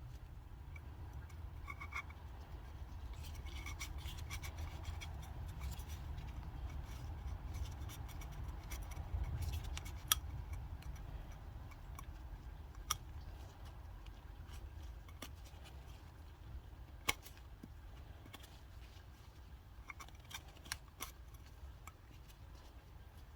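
Faint scattered clicks and scrapes of plastic parts being handled as the old oil filter element is pulled off its housing cap, over a low steady rumble.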